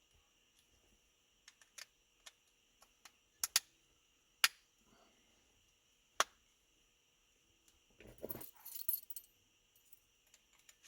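A handful of sharp separate clicks and taps, as of small parts being handled, then a jangle of keys about eight seconds in.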